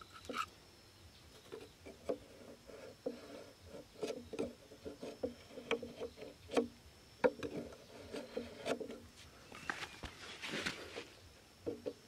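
A large knife tapping, scoring and scraping against a clear plastic jar, a run of short irregular knocks with a longer scrape about ten seconds in.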